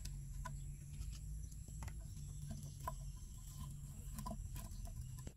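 Small, scattered clicks and crackles of grilled bamboo and cooked catfish being pried open and picked apart by hand, over a steady low hum.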